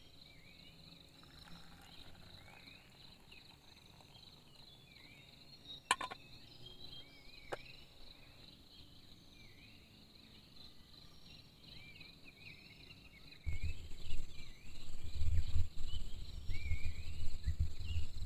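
Night insects: a steady high drone with many short repeated chirps over it, a click and a brief falling call partway through. About three-quarters of the way in, a loud, uneven low rumble starts and keeps building.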